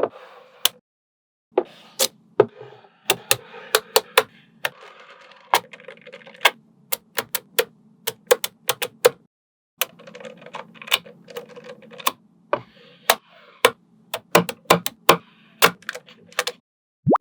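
Small magnetic balls clicking as they snap onto one another, in quick irregular runs of sharp clicks with light rustling and rolling of the balls between them. The sound stops dead briefly twice, about a second in and near the middle.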